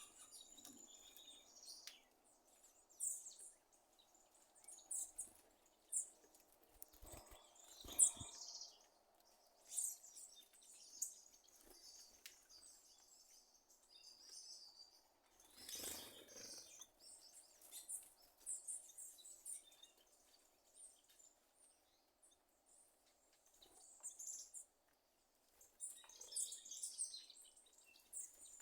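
A sabiá thrush giving short, sharp high notes and clicks at irregular intervals, a popping call likened to popcorn bursting, over a faint steady background hum.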